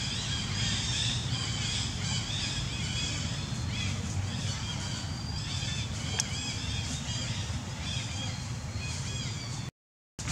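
Many short, high-pitched animal calls chirping over one another, over a steady low rumble; the sound drops out for a moment near the end.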